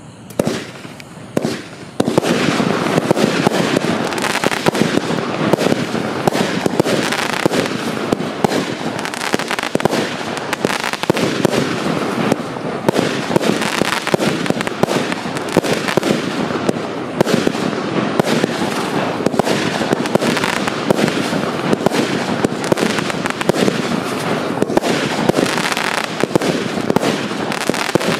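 Wolff 'The Throne' double fan-shaped firework compound (346 shots) firing. A couple of single shots come first, then from about two seconds in a dense, unbroken barrage of launches and bursts.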